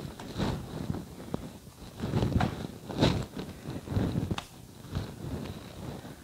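Hands patting and smoothing a thin raw paratha on a nonstick pan, with a run of irregular soft thumps and knocks, the loudest a few seconds in.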